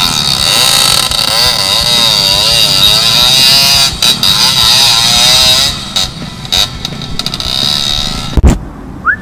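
Dirt bike engine revving hard and unevenly while bogged in a muddy rut, its revs rising and falling over and over as the rear wheel spins. The engine noise drops away about six seconds in, followed by a few knocks and a loud thump near the end.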